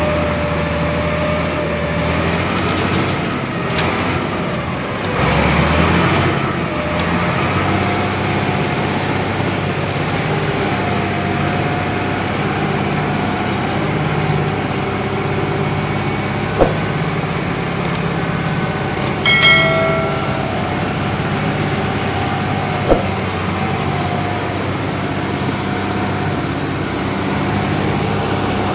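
Diesel engine of heavy earthmoving equipment running steadily under work, with two sharp knocks and a short high-pitched squeal about two-thirds through.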